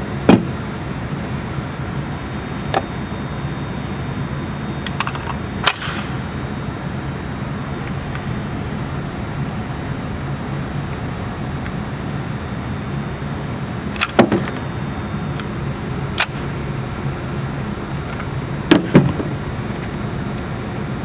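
Pistol shots from a CZ 97B .45 ACP firing 185-grain semi-wadcutter match loads: single sharp reports spaced irregularly several seconds apart, some louder than others, with two in quick succession near the end. A steady hum runs underneath.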